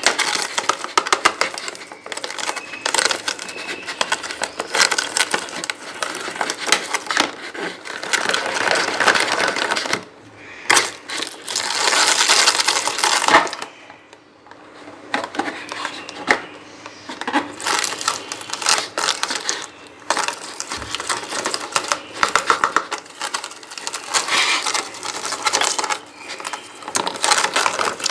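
A flock of lovebirds chattering and chirping, a dense stream of rapid, high-pitched clicking calls with brief lulls.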